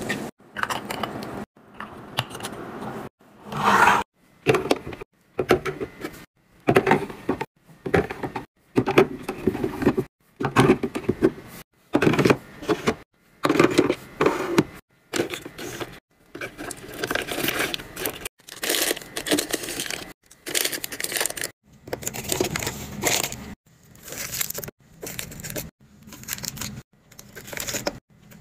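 Rapid series of short, hard-cut snippets of a mini fridge being restocked: drinks and snacks set down with clicks and clatter, plastic packaging rustling, each snippet cut off abruptly by a brief silence.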